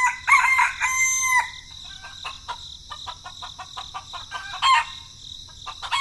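A rooster crowing once, about a second and a half long, then scattered short clicks over a steady high tone.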